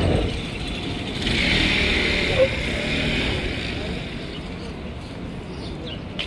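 Street traffic: passing vehicles rumbling, with a hiss that swells about a second in and fades over the next few seconds.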